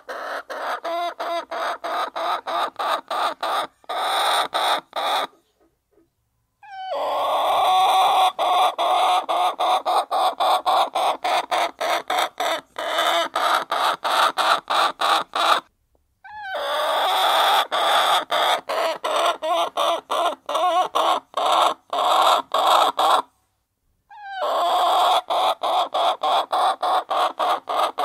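A flock of domestic hens clucking together while they feed, a dense continuous chatter of many birds. It drops out briefly three times.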